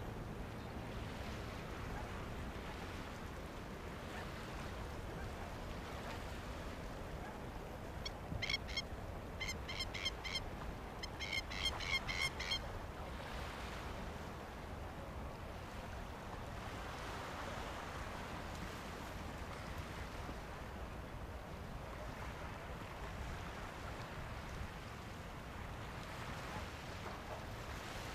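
A bird calling in a quick run of short, harsh notes for about four seconds, starting about eight seconds in, over steady wind and water noise.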